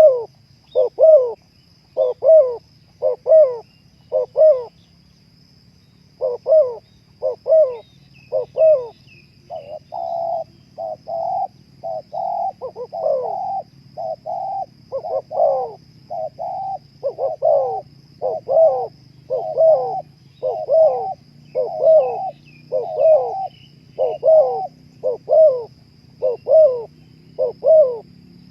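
Spotted doves (terkukur) cooing: short repeated coo notes, about two a second, pause briefly about five seconds in, then come denser and longer from about ten seconds on. A faint steady high tone sits behind them.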